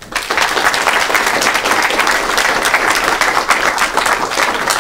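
Audience applauding: loud, dense clapping that breaks out all at once and holds steady.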